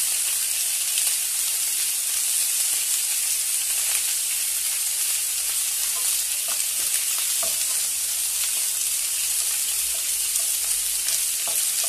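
Chopped onions and peppers sizzling steadily in hot oil in a steel pot while a wooden spoon stirs them, with a few faint clicks. The onions are being sweated until soft.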